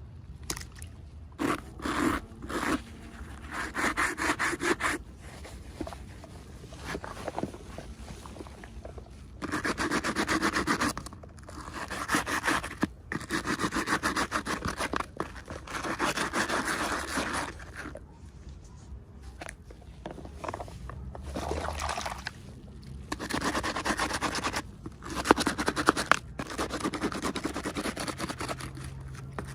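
Packaging being handled and rubbed during an unboxing: repeated scraping strokes of a second or two each with short pauses between, and a couple of sharp clicks near the end.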